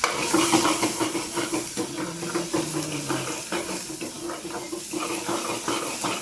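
Vegetables frying in hot oil in a kadai: a loud sizzle starts suddenly as they go into the oil and carries on as a steady hiss while they sauté.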